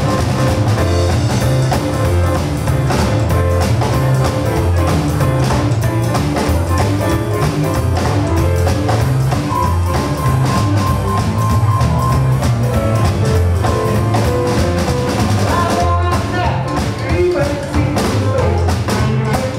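Live rock and roll band playing with a steady beat: stage piano, electric guitar, bass and drum kit.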